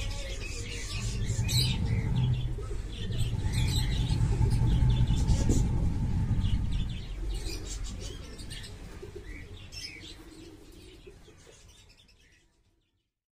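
Domestic highflyer pigeons cooing low, with small birds chirping in the background; the sound fades away over the last few seconds.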